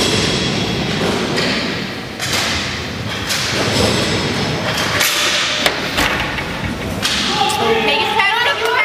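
Inline hockey play: a string of sharp, irregular knocks from sticks, puck and boards over the steady rumble of skate wheels on the rink floor. Shouting voices come in near the end.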